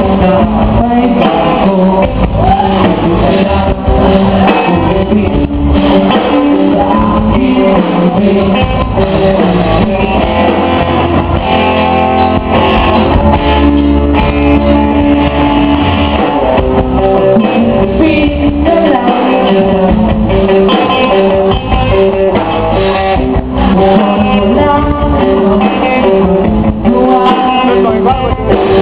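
A live band performing a song: guitar and singing over a steady bass line.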